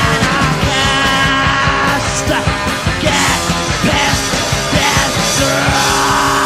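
Punk rock band playing live and loud: distorted electric guitar chords over bass and a driving drum beat.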